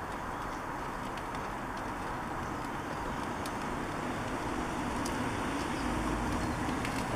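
Wash mitt rubbing over a snow-foam-covered car body panel: steady soft swishing with faint ticks.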